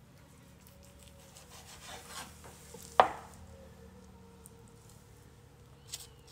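Knife cutting pieces of cooked salt cod on a cutting board. A soft scraping rub is followed by one sharp knock on the board about three seconds in, and a small click near the end.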